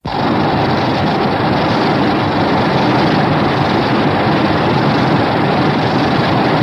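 Godzilla sound effect: a loud, continuous rushing noise that starts abruptly and holds steady, without a clear pitch.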